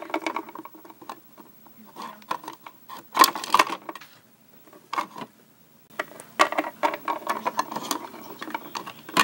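Close handling noise of a small doll and its clothes: irregular clicks, rubbing and rustling, loudest about three seconds in and again between six and eight seconds.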